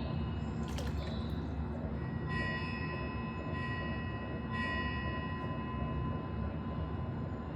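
A steady rumbling white-noise bed with a high, bell-like ringing tone that sounds twice, and a brief click about a second in.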